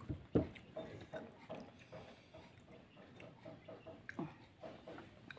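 Faint chewing and mouth smacking, a quick run of soft, evenly repeated sounds, with two sharp clicks near the start.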